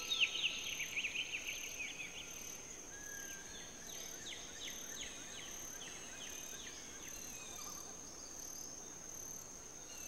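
Faint birdsong: quick falling chirps, strongest in the first two seconds and then fainter, over a steady high-pitched insect drone.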